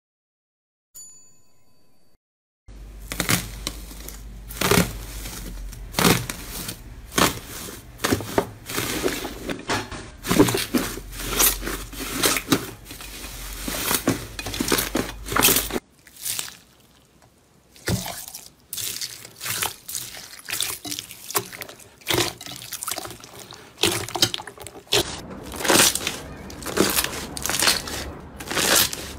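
Hands squeezing, pressing and poking thick slime: irregular wet squelches and sticky pops, several a second. It comes after a faint short tone near the start and breaks off briefly about halfway.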